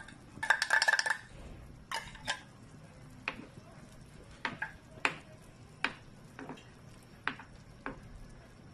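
A metal spoon scraping inside a tin can, then stirring a stew in a metal pot, with sharp clicks of the spoon against the pot about once a second.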